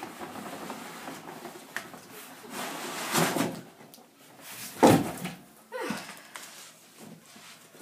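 Cardboard shipping box being pulled up and off a boxed vacuum cleaner: cardboard scraping and rustling, with one loud thump about five seconds in and a smaller knock just after.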